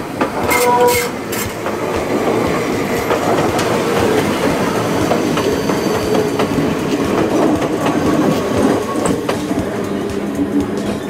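Enoshima Electric Railway (Enoden) cars passing close by, wheels clattering over the rail joints over a steady rumble. A brief pitched tone sounds about a second in.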